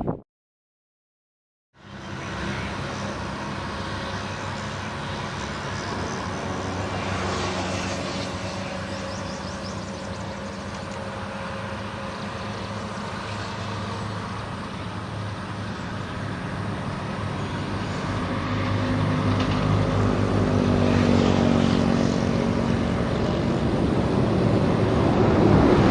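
Metre-gauge train running: a steady mechanical drone with a low engine-like hum that grows louder over the last several seconds. It starts after about two seconds of silence.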